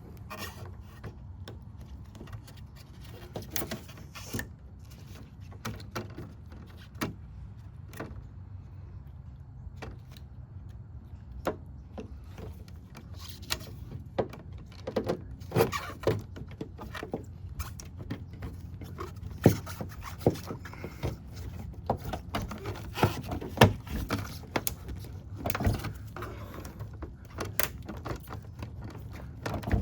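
Irregular clicks, taps and knocks of hands and tools working on a car's trunk-lid handle and trim, denser in the second half, over a steady low hum.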